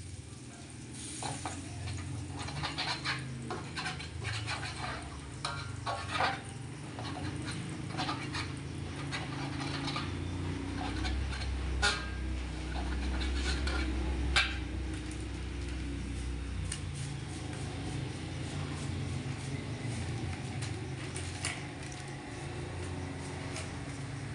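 Metal spatula scraping and knocking against an aluminium wok in irregular strokes as tempoyak is stirred and broken up, with two sharper clanks in the middle.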